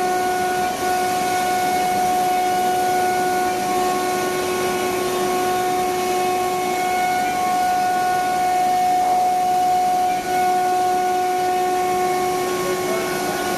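Maka PE70 CNC router running, its spindle giving a steady high whine over a constant rushing noise.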